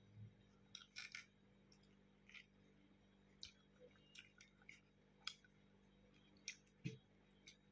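Near silence broken by faint, scattered clicks and ticks of eating by hand: a child tearing roti and picking vegetable curry from a steel plate, and chewing.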